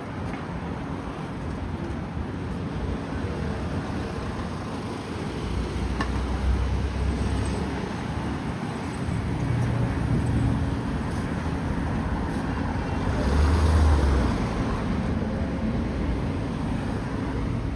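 Street traffic: a steady hum of vehicles, with several passing by and one passing close about two-thirds of the way through.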